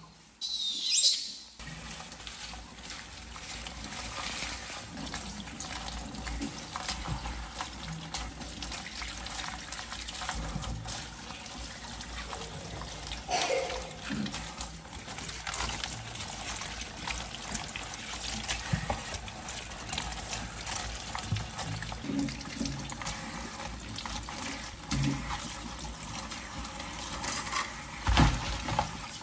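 Kitchen tap running steadily into a stainless-steel sink as leaves and lemongrass stalks are rinsed under the stream, the water splashing and trickling. A short high squeak about a second in.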